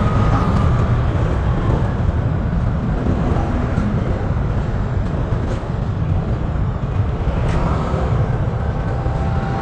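Steady rumble of a vehicle under way: even road and engine noise, strongest in the low end, with no distinct events.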